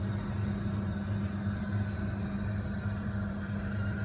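Steady low hum with a light hiss behind it, from a motor running in a kitchen.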